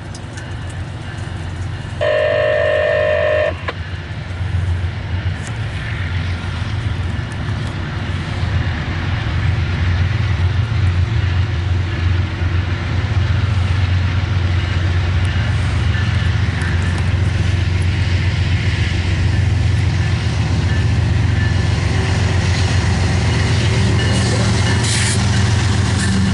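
Freight train diesel locomotives approaching and passing close by: one short horn blast about two seconds in, then a low engine rumble that builds as the locomotives draw near and stays loud as they go by.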